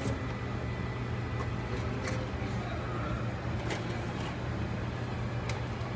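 A steady low hum, like a fan or motor running, with about four light clicks or knocks spread through it.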